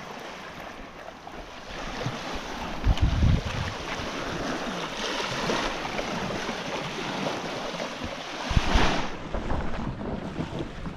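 Ocean surf washing on the beach, swelling and easing, with wind buffeting the microphone in two strong gusts.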